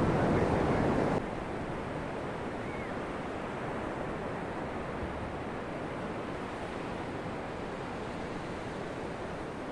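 Sea surf breaking and washing on a sandy beach, a steady rushing noise. It is louder for about the first second, then drops suddenly to a quieter, even wash.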